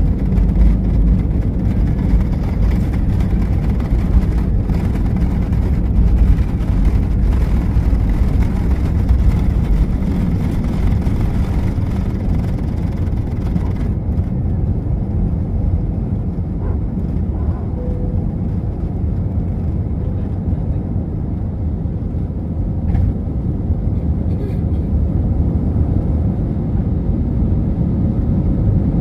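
Airliner's jet engines and cabin rumbling loudly during takeoff, heard from inside the cabin behind the wing. A higher hiss over the deep rumble falls away about halfway through.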